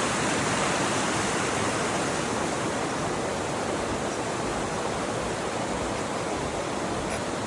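Mountain creek running, a steady rush of water.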